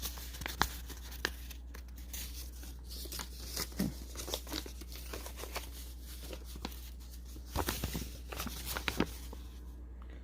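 Packaging being handled by hand during an unboxing: paper and wrapping crinkling and rustling with scattered sharp crackles, busiest near the end.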